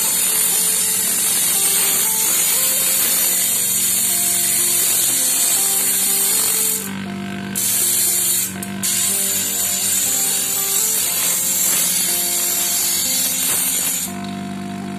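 Angle grinder running, its disc grinding the edge of a small stainless steel piece with a steady loud hiss over the motor's hum. The grinding breaks off briefly twice, about seven and eight and a half seconds in, then stops about a second before the end, leaving the motor running.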